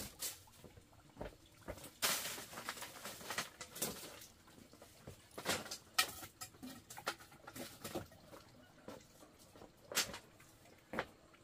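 Dry straw rustling and crackling in handfuls, with scattered light knocks of sticks, as kindling is handled at a fire pit.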